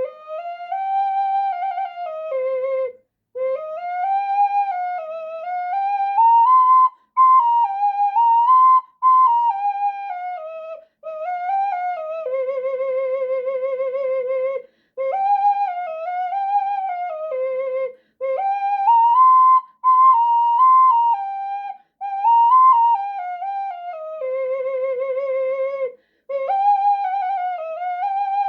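Unfired clay box ocarina playing a slow melody within about an octave, in phrases broken by short breath gaps, with vibrato on the held notes.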